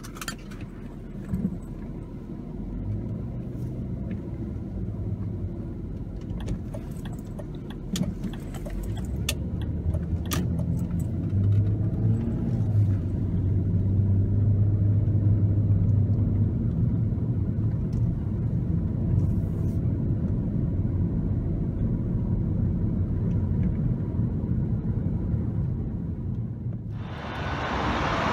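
BMW 523i (E39) 2.5-litre straight-six heard from inside the cabin as the car pulls away and accelerates: a low, steady engine note that grows louder, with a few light clicks and rattles in the first ten seconds. About a second before the end it switches to the car heard from the roadside, approaching with a rush of engine and tyre noise.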